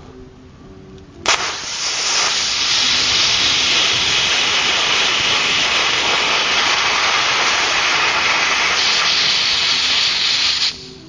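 A potassium nitrate, sugar and aluminium rocket motor in a paper casing ignites with a sudden loud burst about a second in. It then burns with a loud, steady hiss for about nine seconds and cuts off abruptly. The maker says it burned very energetically at first because the fuel was molten.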